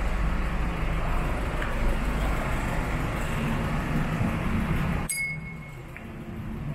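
Street traffic: a steady low rumble of vehicles passing, which drops away suddenly about five seconds in.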